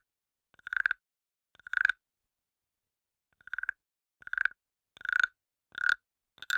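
Wooden frog guiro: a stick scraped along the frog's ridged back, giving short rasping croaks made of fast clicks. Two croaks about a second apart, a pause of a second and a half, then a steady run of croaks about every three-quarters of a second.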